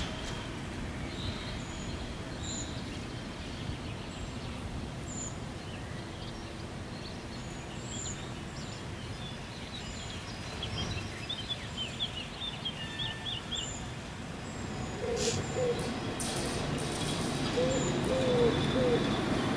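Small birds chirping and singing over a steady low outdoor rumble. In the last few seconds the rumble grows louder as a tram starts to pull away, and a low cooing call repeats.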